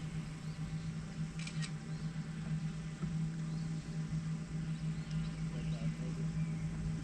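Steady low hum under faint, scattered high chirps, with a quick double click about a second and a half in.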